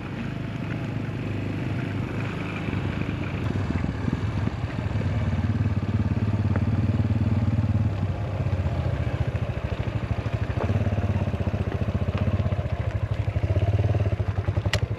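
Motorcycle engine running as the bike rides a rough dirt track, with a fast, even firing pulse. It gets louder about five seconds in and eases off briefly a few times.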